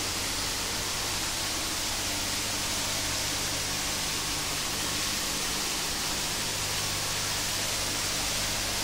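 Water in round biofloc tanks bubbling and churning steadily as air streams from many hanging aeration stones, with a faint steady low hum underneath.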